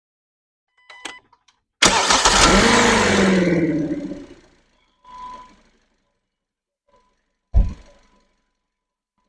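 A 2016 Kia Optima's 2.4 four-cylinder engine starting with its drive belts removed: a click about a second in, then a loud burst as it cranks and catches that fades away over the next two seconds or so. A short fainter sound follows, then a single sharp thump near the end, part of the strange noise being hunted, which persists with the belts off.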